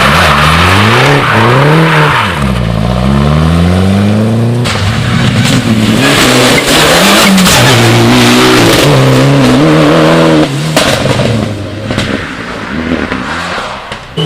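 Rally car engines driven hard, revs climbing and falling sharply with each gear change and lift. A hiss of tyre noise comes over the engine in the first few seconds. The sound changes abruptly about a third of the way in and again about three quarters in, as from one car to another.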